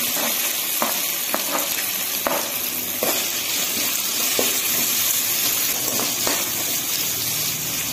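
Sliced onions sizzling steadily in hot oil in an aluminium kadai, with a metal spatula stirring them and knocking against the pan now and then.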